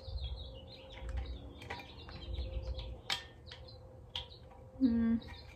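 Rustling and light clicks of items and packaging being handled and unpacked, with a few high chirping squeaks early on. A short loud hum comes about a second before the end.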